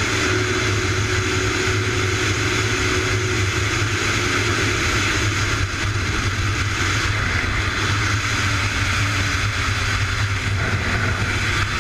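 Motorcycle at cruising speed heard from its on-board camera: a steady engine hum under constant wind and road noise.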